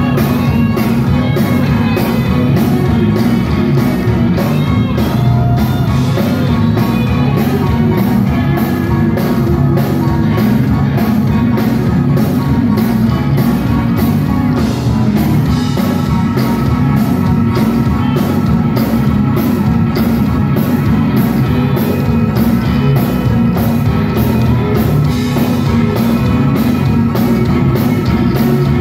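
Live band playing at full volume: an electric guitar takes the lead over drum kit, bass guitar and keyboard, with a steady beat.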